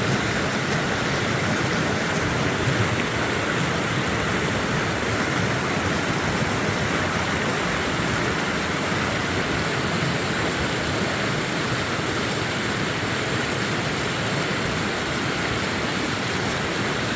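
Snowmelt creek cascading down a mountainside: a steady, unbroken rush of water.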